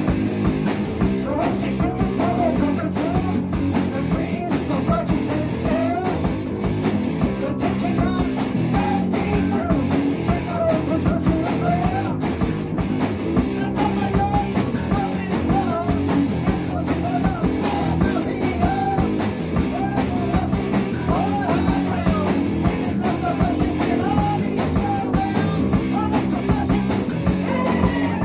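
Rock band playing live in a room: bass guitar, electric guitar and drum kit, with a man singing into a microphone over them.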